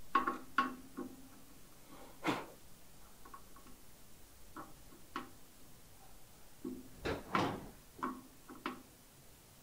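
Hand tool clicking and knocking on bolts as the mounting bolts of a motorcycle tank-bag ring are tightened down: irregular knocks and clicks, a few with a short ring, loudest near the start and about seven seconds in.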